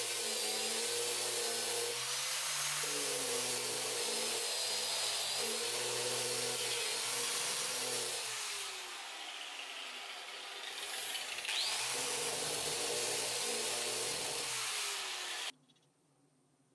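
Angle grinder with a sanding disc sanding the edges of a hardwood speaker cabinet: a steady motor whine with a hiss of abrasion, its pitch wavering as the disc is worked into the wood. It goes quieter for a couple of seconds about nine seconds in, then cuts off about a second before the end.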